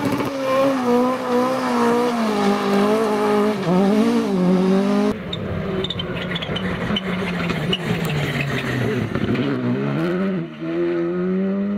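A hatchback rally car's engine held at high revs with wheelspin, the pitch wavering up and down as it tries to drive out of the grass verge. After a sudden cut, a Škoda Fabia rally car's engine comes up the road, its note dipping and climbing again near the end as it shifts and accelerates past.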